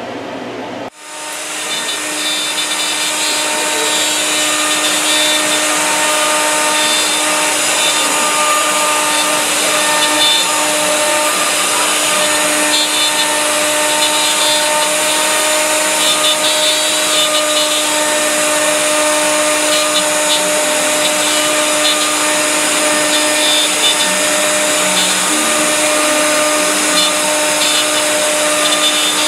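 CNC router spindle running with a 60-degree V-bit, cleaning up the edges of raised letters carved into a wooden sign. A steady whine with a rasp of cutting that comes and goes; the sound comes up over the first few seconds after a cut about a second in.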